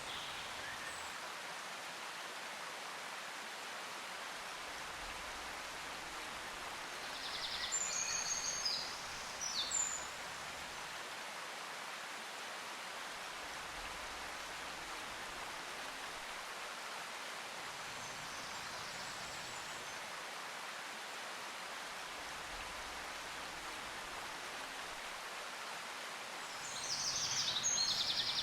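Steady rushing hiss like running water, with short bursts of bird chirping about a third of the way in and again near the end.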